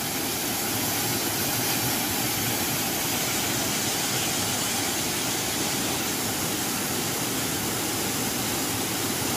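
Steady rush of a waterfall and its churning stream.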